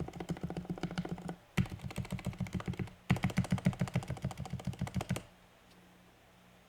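Fast typing on a Ducky Mecha Mini mechanical keyboard fitted with lubed Cherry MX Silent Red switches. It comes in three quick runs of keystrokes with brief pauses between them, and stops about five seconds in.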